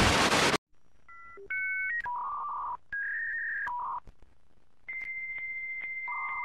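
A short burst of hiss like TV static, then telephone touch-tone dialing beeps and a dial-up modem connecting: a run of steady electronic tones, a long high tone from about five seconds in, and two overlapping tones near the end.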